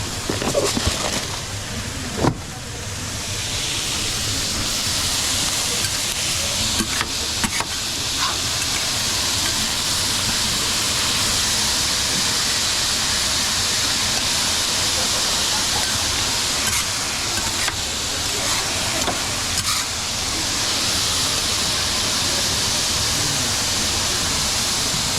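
Food frying in a hot pan: a steady, loud sizzle that swells up about two seconds in and carries on with a few small clicks.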